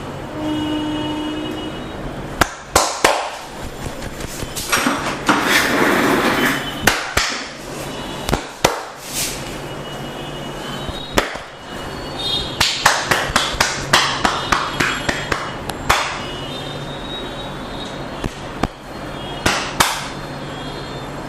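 Wooden massage tools tapping on the body: sharp taps come in irregular bursts, with a fast run of about five taps a second in the second half.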